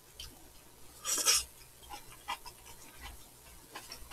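A person eating noodles with chopsticks: a short slurp about a second in, then quiet mouth noises and a few light clicks of chopsticks on a bowl.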